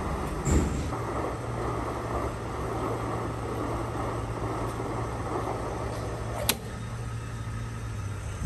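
Gasoline rushing from a pump nozzle into a Dodge Charger's fuel tank over a steady low hum, with a knock just after the start. About six and a half seconds in a sharp click sounds and the rush of fuel quietens: the nozzle's automatic shutoff tripping.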